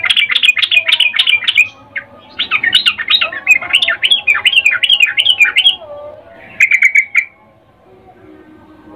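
Yellow-vented bulbul giving rapid, bubbly chattering calls in three bursts, the longest in the middle and a short one about two-thirds of the way in. This is the female's breeding call to a male, the 'ngecuplik' call.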